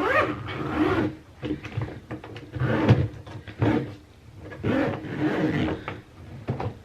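Irregular bursts of scraping and rasping as a hard-shell suitcase is handled and its expansion zipper is worked.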